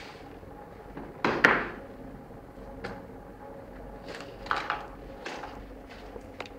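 Handling noise from a hand-held camera being moved about at close range: a series of short knocks and rustles, the loudest about a second and a half in, over a faint steady room hum.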